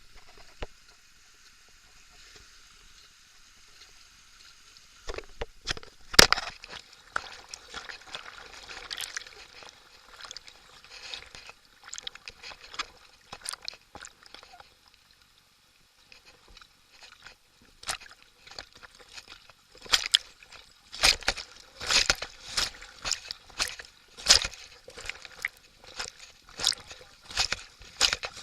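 River water splashing and sloshing around a rafting boat: a steady rushing hiss at first, then many sharp splashes. After a brief lull partway through, the splashes come quickly again, about two a second, toward the end.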